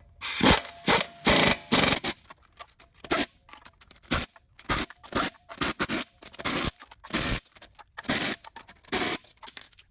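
An irregular series of short scraping strokes, roughly two a second.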